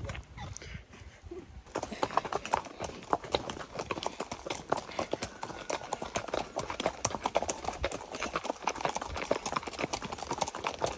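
Several saddle horses walking in a line on a dirt road, their hooves clip-clopping in many overlapping, irregular hoofbeats. The hoofbeats start about two seconds in.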